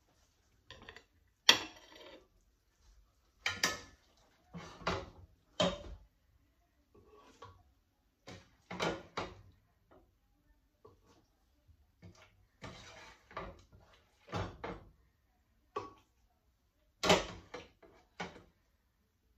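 A plastic spoon scraping and knocking against a pan and a glass blender jar as fried chiles are scooped into the blender. It comes as a string of separate clatters and scrapes, the loudest about a second and a half in and again near the end.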